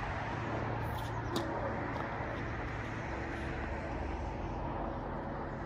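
Steady outdoor background noise with a low hum, and a faint sharp tick about one and a half seconds in.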